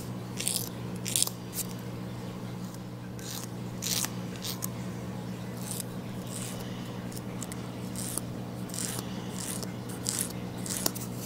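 Emery board filing a capuchin monkey's fingernails, short irregular scraping strokes over a steady low hum.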